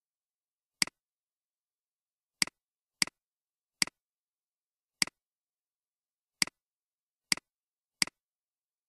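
Computer mouse clicks, eight of them at uneven intervals, each a sharp press followed at once by a lighter release, with dead silence in between.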